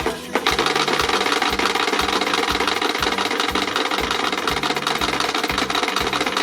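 Wooden Easter rattles (Klappern) being worked, giving a loud, continuous rapid clatter of wooden clacks.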